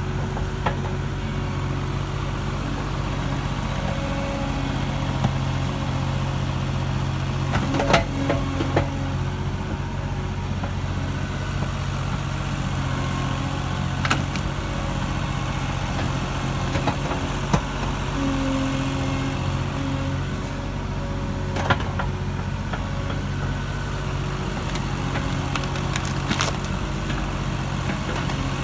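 Avant 760i compact loader's diesel engine running steadily while the 4-in-1 bucket digs, with a higher hydraulic whine that comes and goes as the bucket is worked. A few sharp knocks and cracks, about half a dozen in all, as the bucket strikes soil and roots.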